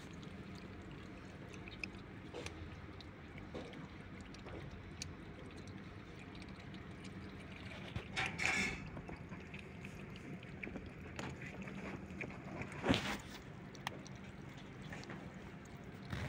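Kittens eating chunks of food from a metal plate: faint wet chewing and lapping with small clicks, over a steady low hum. A brief louder rustle comes about eight seconds in and a sharp click near thirteen seconds.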